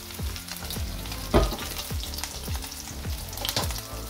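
Smoked pork lard frying on low heat in its own rendered fat, sizzling with a steady run of crackling pops; one louder pop comes about a second and a half in.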